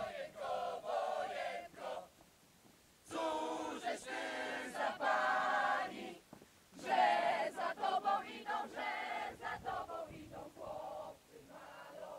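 A group of young men and women singing a Polish military song together while marching. The song comes in phrases, with two short pauses.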